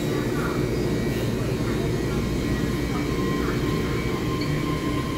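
Taiwan Railway EMU3000 electric multiple unit starting to pull out along the platform: a steady low rumble of the moving train, with a faint steady tone joining about halfway through.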